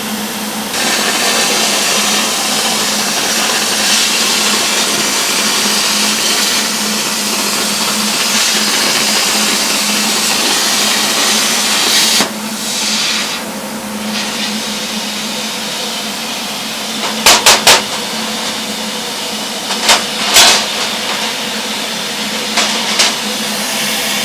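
Plasma cutter arc hissing steadily as it cuts thin steel plate, stopping about twelve seconds in. Several sharp knocks follow near the end, under a steady low hum.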